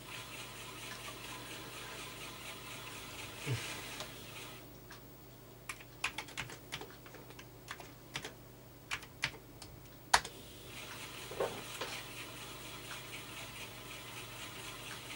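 Typing on a Commodore 128 keyboard: a run of about a dozen separate key clicks over roughly five seconds, ending with one sharp, louder key strike. A steady low hiss runs underneath.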